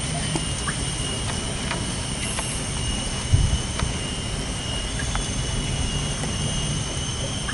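Outdoor ambience: a steady low rumble with a thin, steady high-pitched drone above it, a few faint short chirps, and a soft thump about three seconds in.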